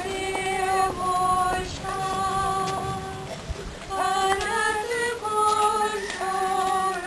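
A woman singing a slow solo hymn, holding long steady notes about a second each, with short breaths between phrases.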